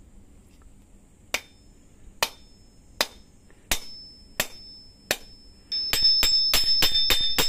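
Steel hammer striking to peen a 1 cm piece of copper tube into a hammer's head as a rivet: six single blows at an even, unhurried pace, then a quick run of lighter taps near the end with a high metallic ring.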